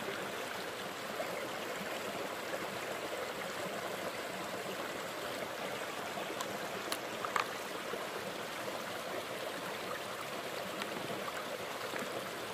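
Small spring-fed creek running steadily over rocks, with a few faint clicks about seven seconds in.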